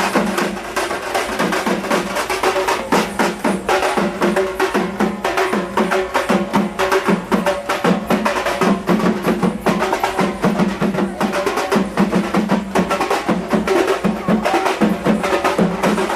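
Loud, fast festival drumming in a dense, driving rhythm, with a held tone running under the beats.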